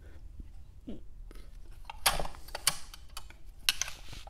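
Several sharp metal clicks and taps of a screwdriver and small parts against an aluminum Rochester Quadrajet carburetor during disassembly, the loudest about two seconds in.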